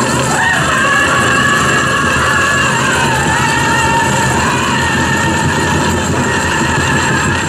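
Powwow drum group singing a chicken dance song: high voices holding long notes that slide down partway through, over the steady beat of a large powwow drum.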